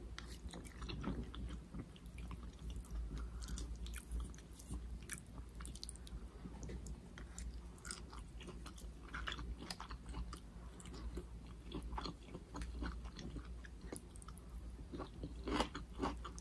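A person chewing and biting food close to the microphone: irregular wet mouth clicks and soft crunches, several a second.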